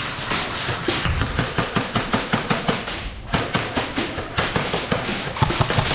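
Airsoft guns firing in rapid bursts, a dense run of sharp cracks at several shots a second.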